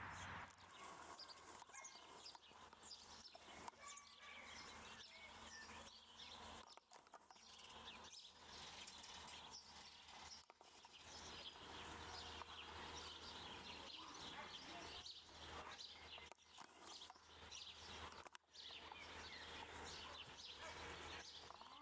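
Faint outdoor ambience of small birds chirping in the distance, over a low steady hum.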